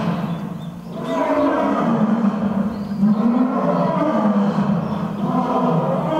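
Lions roaring back and forth: long, low roars one after another, with a brief lull just before a second in.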